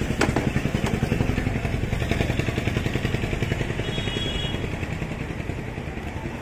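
A small engine idling steadily with a fast, even putter. A short knock sounds just after the start.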